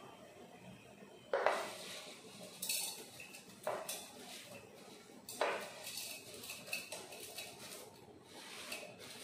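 A plastic spatula scraping and knocking against a plate and a stainless-steel mixer-grinder jar as sautéed curry leaves are pushed in: four sharp clinks, spaced a second or so apart, then a few softer taps.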